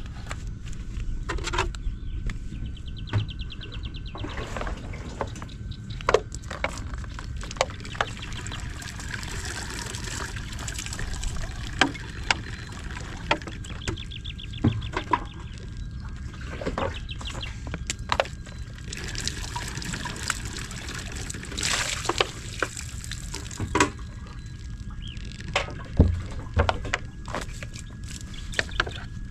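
Liquid pouring and trickling in spells while a small gasoline water pump is being readied, with scattered knocks and clicks from handling the pump. The pump's engine is not running.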